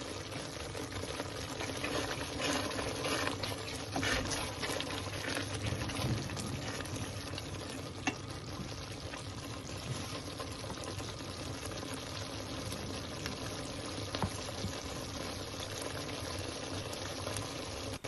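Thick tomato and herb sauce bubbling as it cooks down in a steel pot, with a wooden spatula stirring and scraping through it, busier for the first several seconds. A single sharp tap about eight seconds in.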